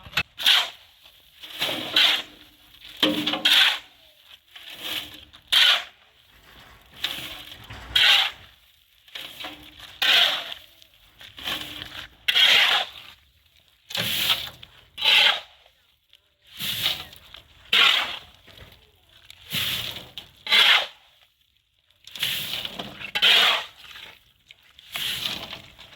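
Repeated rough scraping strokes, about one every second or so, each a short rasping rub with brief pauses between.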